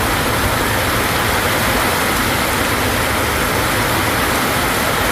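Heavy rain falling on a wet road in a steady, even hiss, mixed with the noise of vehicles on the waterlogged surface.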